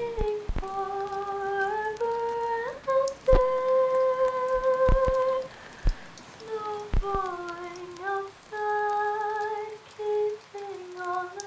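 A woman humming a slow melody without words, holding long notes that step from pitch to pitch, with a few soft clicks in between.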